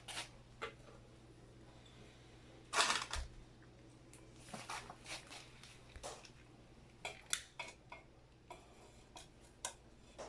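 Scattered short clinks and scrapes of metal containers being handled while a small alcohol burner is lit, with one louder scraping burst about three seconds in.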